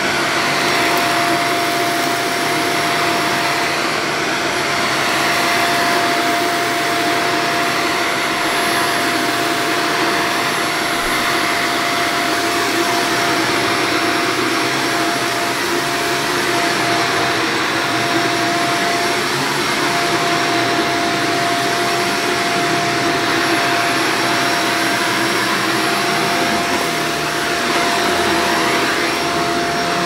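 Shark corded upright vacuum cleaner running steadily while pushed over carpet: a continuous rush of air with a steady whine.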